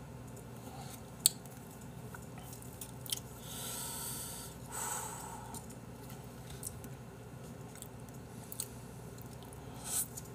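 Mouth sounds of a man eating Chapagetti black-bean-sauce instant noodles with chopsticks: chewing with a few soft clicks. There are two airy slurp-like sounds about four and five seconds in, and a louder slurp right at the end.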